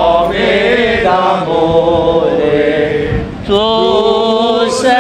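A group of men and boys singing a slow Marian hymn together, with long held notes. The singing breaks off briefly about three seconds in, then a new phrase begins.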